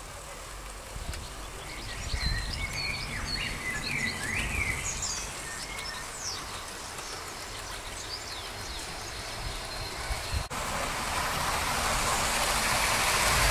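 Garden birds chirping in short, gliding calls over a low outdoor rumble. About ten seconds in the sound cuts, and a steady hiss rises and grows louder.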